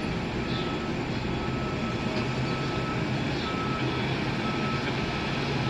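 Heavy construction machine's engine running steadily, with a reversing alarm sounding repeated long beeps about once a second.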